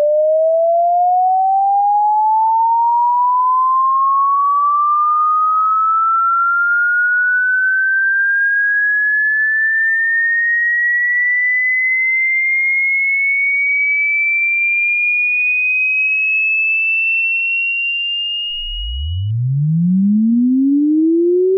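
Electronically generated sine-wave tone sweeping slowly upward in pitch, from a mid tone to a high whistle, and cutting off about nineteen seconds in. Just before it stops, a new sweep starts from a deep hum and climbs quickly in pitch.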